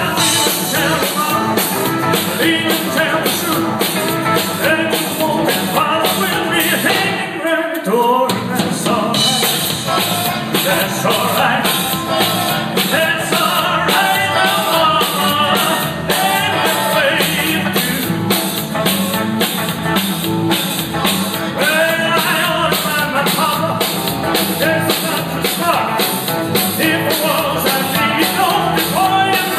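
Live rock and roll band playing, with voices singing over acoustic and electric guitars and a drum kit. About seven and a half seconds in, the bass and drums stop briefly while the voice carries on.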